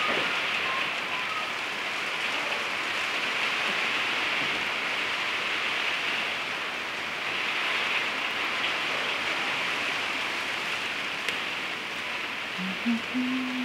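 Heavy rain, a steady even hiss, heard from inside a workshop. Near the end there is a brief low hum.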